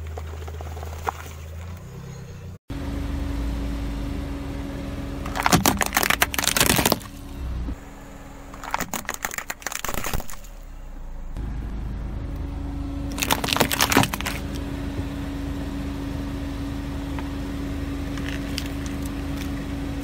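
Car engine running at low speed as its tyre rolls over a plastic action figure and a plastic toy car, with three spells of sharp cracking and crunching as the plastic breaks.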